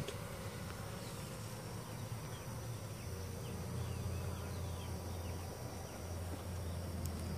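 Steady hum of a honeybee colony buzzing in an opened hive.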